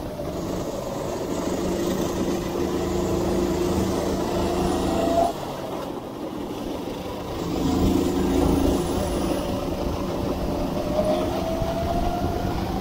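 Go-kart engine under throttle, its pitch climbing as it speeds up. It drops off suddenly about five seconds in, then picks up and climbs again from about seven and a half seconds.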